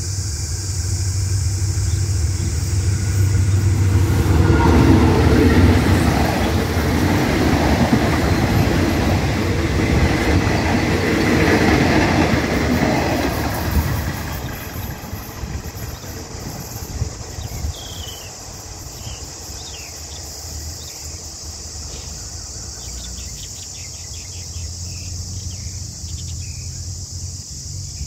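Diesel locomotive GEK 4016 hauling a passenger train past: a deep engine drone and rail rumble that build to their loudest about four seconds in as the locomotive passes, with the wheels clattering as the carriages run by. About fourteen seconds in it falls away as the train moves off.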